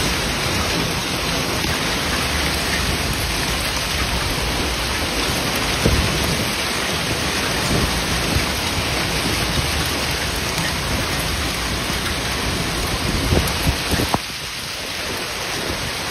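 Heavy hailstorm: hail and rain pelting down in a dense, steady hiss, with a few sharper hits of single stones. It eases slightly near the end.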